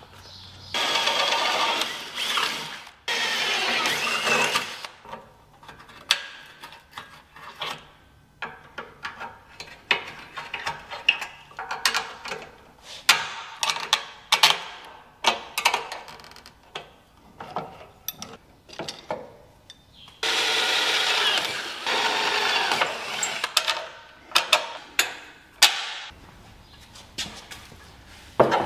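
Cordless drill running in runs of a few seconds, drilling bolt holes through the steel bench frame and a 3D-printed plastic bracket. Between the runs come sharp clicks and knocks of tools, clamps and bolts being handled on the metal.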